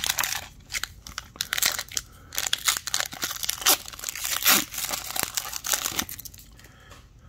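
Foil wrapper of a hockey card pack being torn open and crinkled by hand: a dense run of crackling rustles that dies down about six seconds in.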